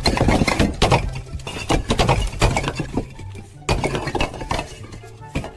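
A rapid run of sharp clinks and crashing impacts, thick at first and thinning out after about three seconds.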